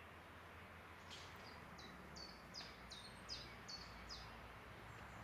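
A songbird singing a quick run of about seven short, high notes that each slide downward, evenly spaced, faint over a steady background hiss.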